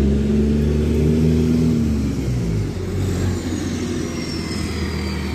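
London double-decker bus with a loud exhaust pulling away and driving past close by. Its deep engine note holds steady, then drops in pitch about two seconds in, and a thin high whine falls slowly in pitch as it goes by.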